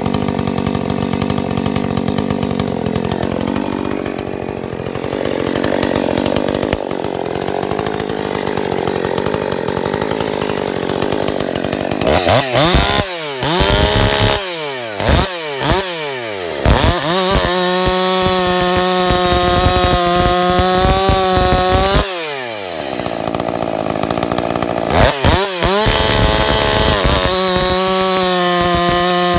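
Modified Husqvarna 359 two-stroke chainsaw idling, then revved in several quick blips and held at full throttle for about five seconds before dropping back to idle. Near the end it is blipped twice more and opened up to full throttle again as the chain cuts into a log.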